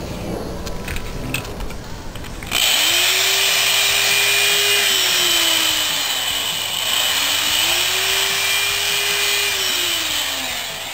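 Corded electric drill reaming out a hole in a wooden board, starting up about two and a half seconds in after a few light handling knocks. Its motor pitch climbs, holds and drops twice as it runs.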